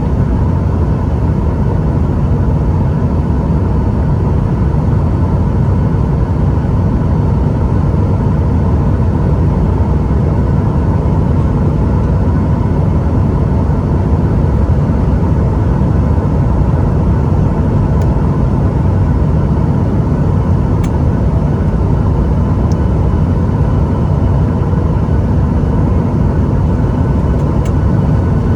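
Steady cabin noise inside a jet airliner: a constant low rumble of engines and airflow with faint steady tones above it.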